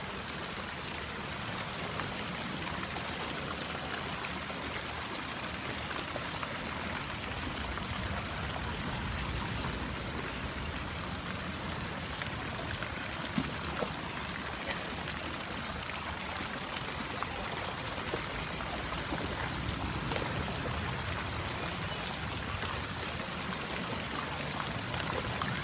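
Pool fountain jets pattering steadily onto the water surface like rain, mixed with swimmers splashing, with a couple of brief louder splashes about halfway through.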